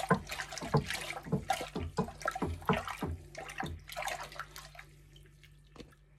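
Water sloshing and swishing in a stainless steel brewing pot as it is stirred with a paddle in quick repeated strokes, dissolving brewing salts into the mash water. The stirring dies away about four seconds in.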